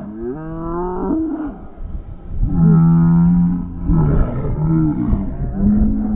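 Riders on a giant swing whooping and yelling: a rising whoop at the start, then several long drawn-out cries.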